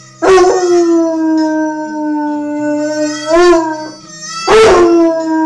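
Rhodesian ridgeback howling along to music, in long drawn-out notes with a fresh howl starting about four and a half seconds in.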